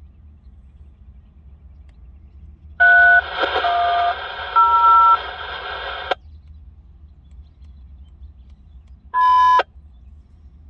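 Railroad radio traffic over a scanner: the channel opens with hiss and three two-tone DTMF touch-tone digits are sent in turn, then the transmission cuts off with a squelch click. About three seconds later comes a short, sharp beep.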